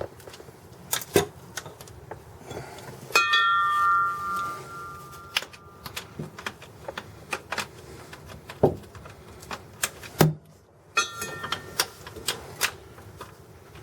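Hand tools working on a Jeep Wrangler's clutch slave cylinder mounting bolts: scattered metallic clicks and knocks, and twice a ringing metallic tone that holds about two seconds and cuts off abruptly.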